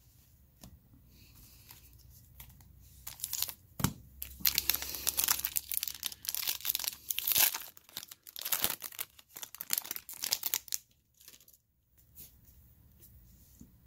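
Foil wrapper of a trading card pack being torn open and crinkled by hand, in irregular bursts from about three seconds in until about eleven seconds in, with a sharp click near four seconds.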